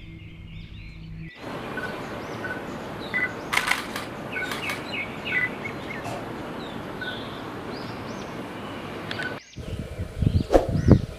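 Small birds chirping and giving short whistled calls over a steady hiss. There are a few sharp clicks near the middle, and louder low clanging starts near the end.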